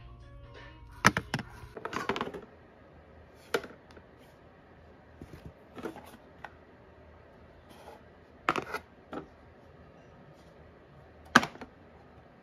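Hard plastic storage bins and trays being handled and set against each other: about a dozen sharp plastic clacks and knocks, irregularly spaced.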